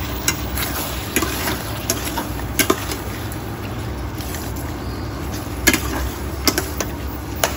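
Slotted metal spatula stirring chicken pieces in sauce in a stainless steel pan, with scattered sharp clinks and scrapes of metal on metal. The food sizzles over a steady low hum.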